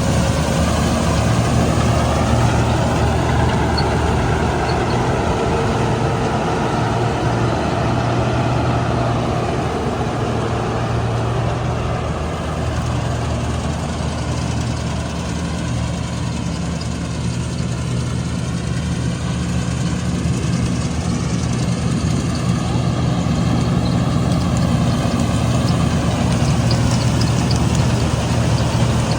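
Heavy diesel engine of farm harvesting machinery running steadily, its pitch wavering slightly.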